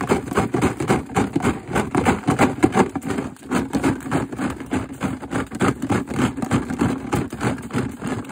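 Golf balls rattling and clacking against each other and the walls of a plastic container as it is held upside down and shaken to empty it, a dense, continuous rattle.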